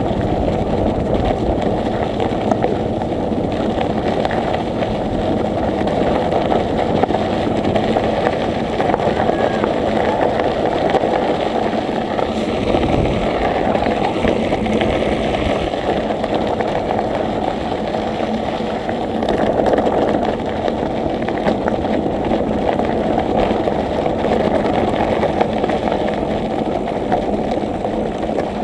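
Steady rushing noise of riding a bicycle: tyres rolling on the road and air moving past the microphone, holding an even level with no distinct events.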